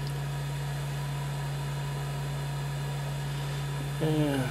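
Steady low hum with a faint hiss from an idle, powered-on FlashForge Dreamer 3D printer. A man's voice starts near the end.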